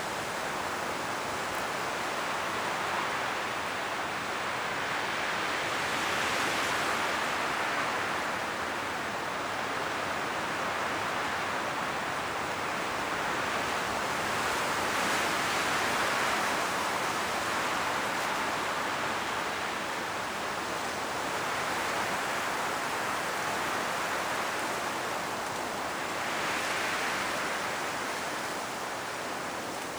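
Strong wind blowing through forest trees, leaves rustling in a steady rush that swells and eases in slow gusts every several seconds.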